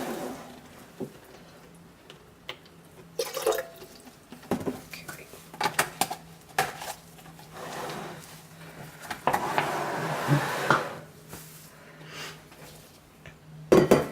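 Kitchen containers clinking and being knocked and set down while water is weighed out, with a short spell of water being poured about nine to eleven seconds in.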